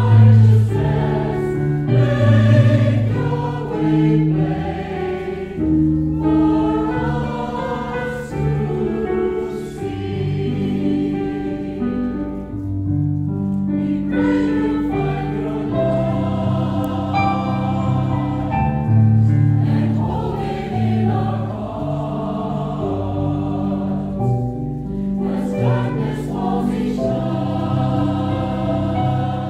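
Mixed choir of men's and women's voices singing a sacred song in sustained, slow-moving phrases, accompanied on an electric keyboard.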